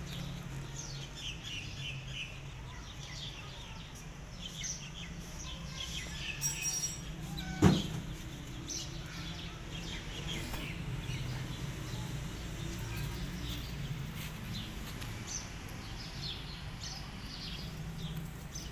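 Birds chirping again and again over a steady low hum, with one sharp knock about eight seconds in.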